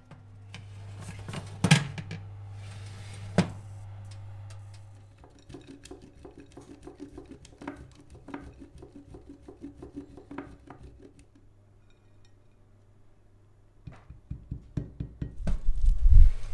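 Parchment paper rustling as it is tucked over a baking tray, over a steady low hum, with two sharp clicks. Then hard cheese grated on a stainless steel box grater in a fast run of even strokes. Near the end, a baking tray is pushed into an oven with low knocks of metal on metal.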